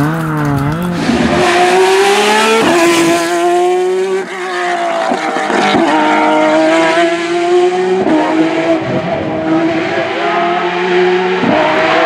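High-revving race car engines at full throttle, accelerating hard. The pitch climbs and then drops sharply at each of several upshifts.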